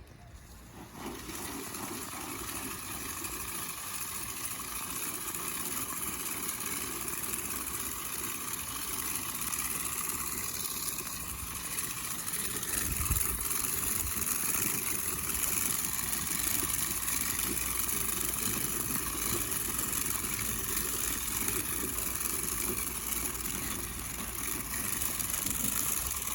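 Plastic push broadcast spreader rolling across a lawn, its wheel-driven gears and spinning plate running steadily as it throws fertilizer granules, a continuous rattling hiss. The spinner is turning again, its slipping shaft held in line with vinyl tape.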